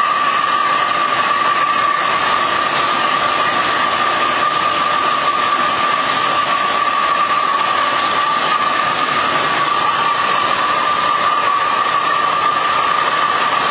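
Rotary veneer peeling lathe running, its knife peeling a spinning log into a continuous thin sheet of wood veneer. The machine noise is loud and steady, with a constant high whine.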